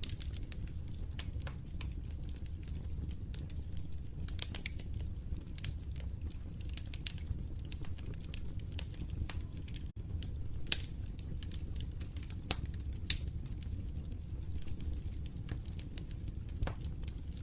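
Wood fire crackling in a fireplace: irregular sharp pops and snaps over a steady low rumble of the burning.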